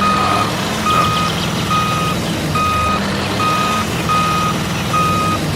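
Vehicle reversing alarm sounding a steady series of evenly spaced beeps, roughly one a second, over the low rumble of a running engine.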